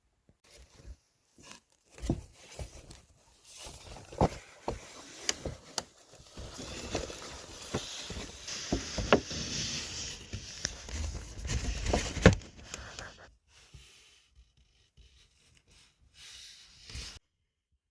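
Flying squirrels scrambling about inside a paper bag: paper rustling and scratching, with sharp taps and knocks. The sound is busiest through the middle, thins out and stops shortly before the end.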